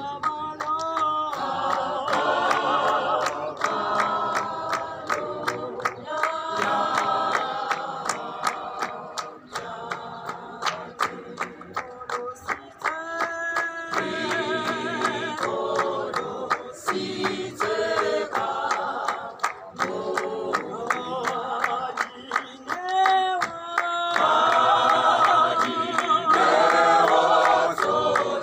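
Gospel choir singing a cappella in harmony, with hand-clapping keeping the beat. The full choir grows louder near the end.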